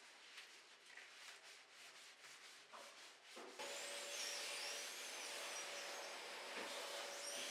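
Rubber-gloved hand scrubbing soapy glass shower-screen panels: short rubbing strokes at first, then from about halfway a louder, steady wiping across the wet glass with faint high squeaks.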